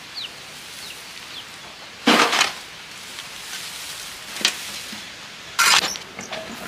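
A long-handled garden tool scraping across dirt ground and scooping up dry brush and weeds, in three short scraping, rustling bursts: about two seconds in, at four and a half seconds, and near six seconds.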